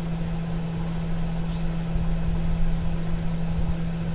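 A steady machine hum, one unwavering low tone over a rough low rumble, from a running fan or motor.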